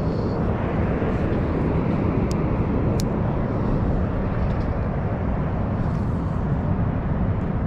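Steady rushing roar of water pouring through a dam spillway: a deep, even noise with no break.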